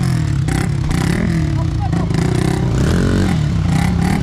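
Motorcycle engines revving unevenly at low speed as the bikes labour over rocks, with the pitch rising for a moment about three seconds in. Stones clatter and scrape under the tyres.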